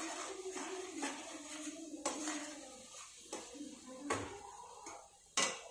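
Metal spoon stirring and scraping a sticky coconut-and-jaggery filling in a kadhai. Several sharp clinks of the spoon against the pan come through, the loudest near the end.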